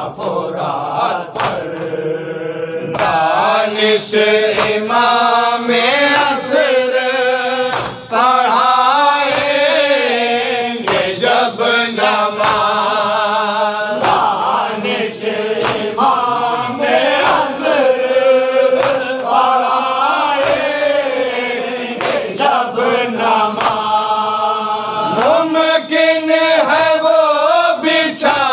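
Group of men chanting an Urdu noha (Shia lament) in unison at a microphone, a lead voice with others joining, the melody held in long sung lines. Sharp slaps of hands beating on chests (matam) fall every second or two, keeping the beat.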